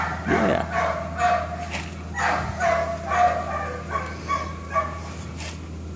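A dog whining in several high, drawn-out whines, pressing for its owner's attention rather than going to its food.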